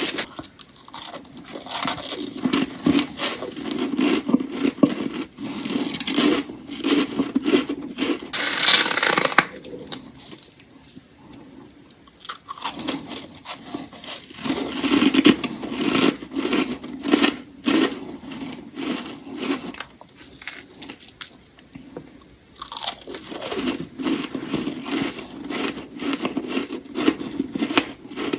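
Close-up crunching and chewing of powdery freezer frost, in three bouts of dense crunches separated by short pauses.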